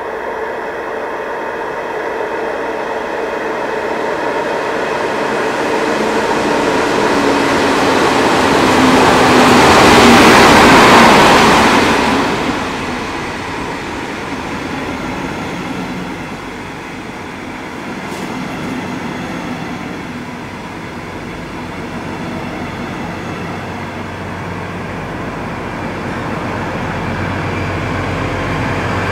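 Diesel-hauled regional train of double-deck coaches passing close by. The noise builds to its loudest about ten seconds in as the leading diesel locomotive passes, its engine note dropping in pitch. Steady wheel-on-rail rolling noise from the coaches follows, and a deep class 218 diesel engine drone grows again near the end as the locomotive at the rear approaches.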